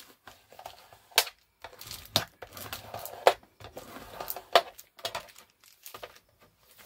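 Paper and card pages being folded and creased by hand: light crinkling broken by a handful of sharp clicks and taps, roughly a second apart.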